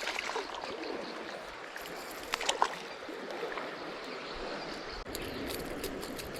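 River water flowing steadily, with a couple of short sharp clicks about two and a half seconds in and more small clicks near the end.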